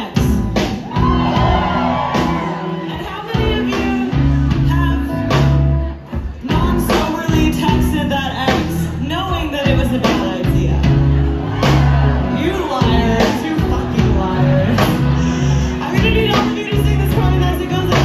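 Indie rock band playing live, with drum kit, bass, electric guitars and sung vocals. The band drops back briefly about six seconds in, then comes back in full.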